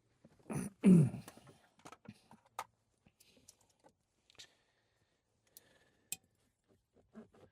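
Scattered light clicks and handling noises, with one louder, short thud about a second in.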